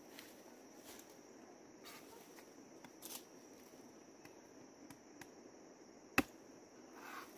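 Steady high buzz of insects, with a few faint knocks and rustles, then a single sharp machete chop into a banana stem about six seconds in.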